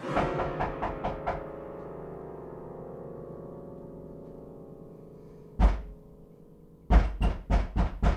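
A musical chord struck with a quick run of about six percussive hits, then left ringing and slowly fading. About five and a half seconds in comes a single heavy thud, then a run of about six thumps or knocks near the end.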